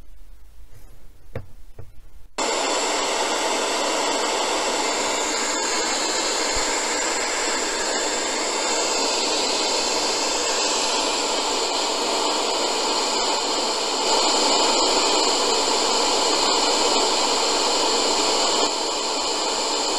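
TG-184 portable FM radio's speaker hissing with loud, steady inter-station static while it auto-scans for stations, starting suddenly about two seconds in.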